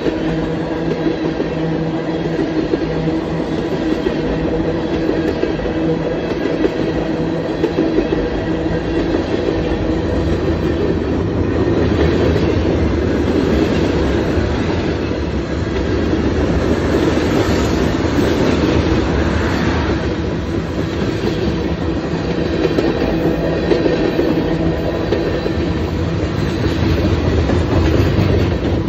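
Freight cars of a Union Pacific manifest train rolling past at close range: steel wheels running on the rails with a steady, continuous rolling noise and some faint steady tones on top.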